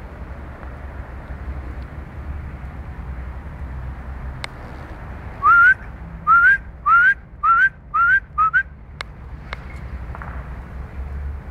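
A person whistling six short rising notes in quick succession, each a quick upward slide, the notes coming faster and shorter toward the end: a whistle calling the dogs.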